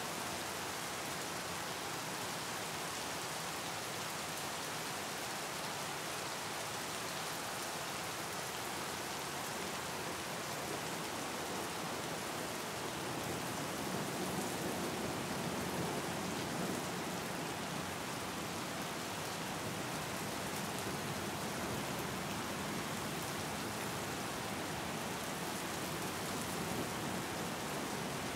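Rain falling steadily, an even hiss that swells slightly about halfway through.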